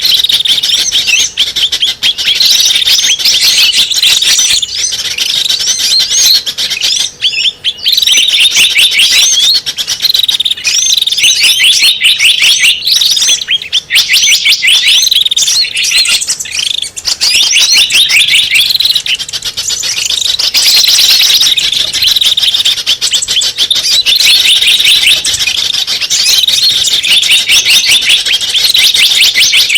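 Small birds' calls played as a bird-catching lure: dense, rapidly repeated high-pitched chirps and trills, loud and nearly unbroken, with two short dips partway through.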